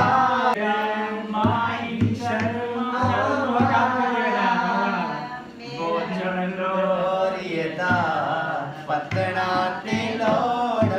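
A man singing a song solo in long, wavering held notes, with a short break about halfway through.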